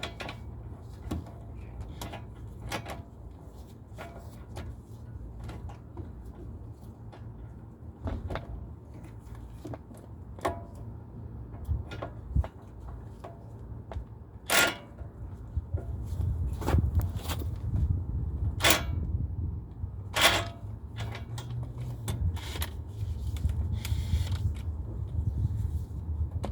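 Scattered metallic clicks and clanks of tools working at a brake caliper's mounting bolts, with a few sharper knocks in the second half, over a steady low rumble.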